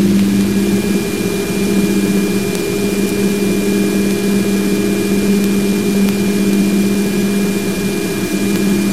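Voyager 2 plasma wave instrument's wideband signal played as audio: a steady hiss with a strong low hum and a constant thin high whine, plus a fainter second tone below it. The high whine is interference from the spacecraft's power supply.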